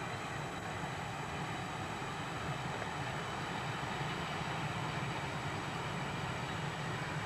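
Diesel locomotive hauling a freight train, its engine giving a steady low rumble that holds at an even level throughout.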